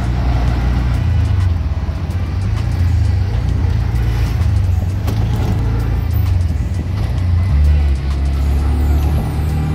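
Car on the move: a steady, low engine-and-road drone that shifts pitch about three-quarters of the way through, with music playing along with it.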